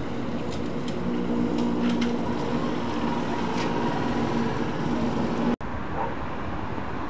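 Street traffic noise with a motor vehicle's engine running steadily, and a few faint clicks. The sound drops out for an instant about five and a half seconds in, then carries on.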